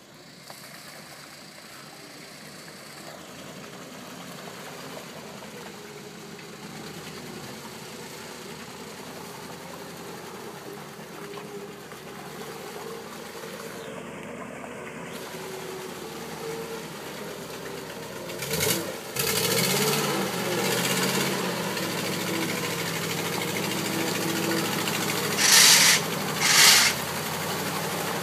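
Old Tucker Sno-Cat's engine running and growing steadily louder, revving up about two-thirds of the way through. Near the end come two short, loud bursts that are the loudest sounds here.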